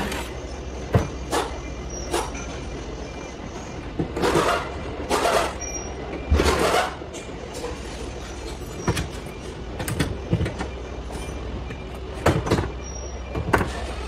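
Cordless impact driver on the car seat's mounting bolts, run in three short bursts about four to seven seconds in, with scattered knocks and clicks from handling the seat.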